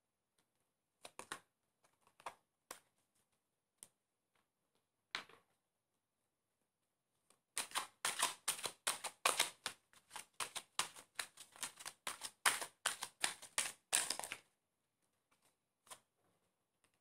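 A tarot deck being shuffled by hand on a cloth-covered table. A few single card snaps come first, then about seven seconds of rapid card clicks, around four a second, stopping suddenly.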